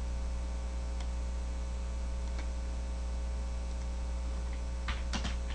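Steady electrical mains hum in the recording, with a few light clicks and a quick run of them near the end.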